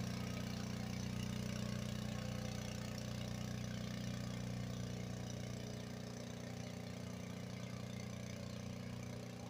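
Engine on a disinfectant-spraying pickup truck running steadily at an even, unchanging pitch, growing a little fainter in the second half.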